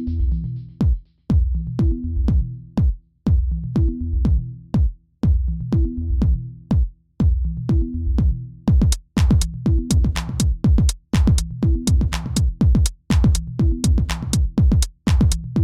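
Background electronic music with a steady drum-machine beat over a repeating bass line. The percussion becomes busier a little past halfway through.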